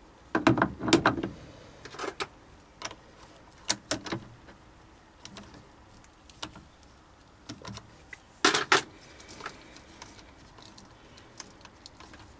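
Steel clicks and knocks as a small four-jaw independent chuck on its backplate is handled and fitted into the jaws of a larger lathe chuck. There is a loud cluster of knocks about half a second in, a pair near the eight-and-a-half-second mark, and lighter ticks in between and after.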